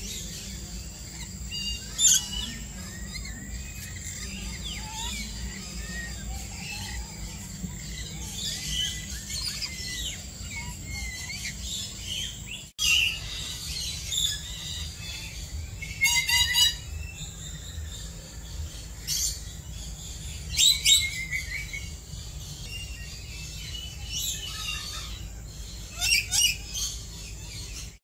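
Parrots such as lorikeets and lories calling: a steady chatter of chirps, broken by loud, sharp screeches made of short repeated notes about two seconds in and several times in the second half, over a steady low hum.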